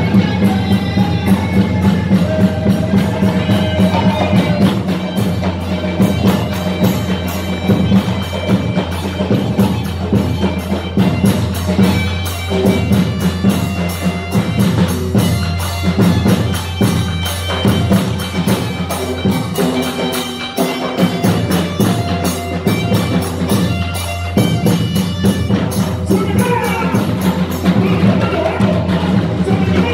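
Colombian folk dance music with fast, dense drumming and percussion, and a melody line over it.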